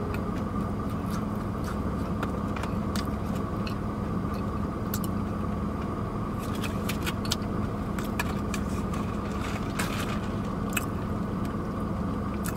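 Steady hum of an idling car heard inside the cabin, with scattered sharp crinkles from a foil food wrapper being handled and sounds of chewing.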